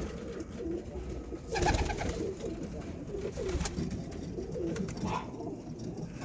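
Birmingham roller pigeons cooing, many birds overlapping. A brief louder rustle comes about one and a half seconds in.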